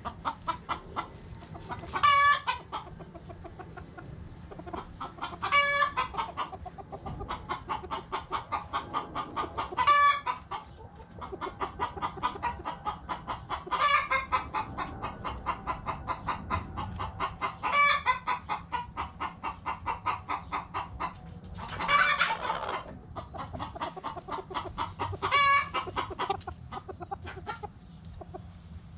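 Chickens clucking in a fast, even run of short clucks, with a louder, higher call breaking in about every four seconds.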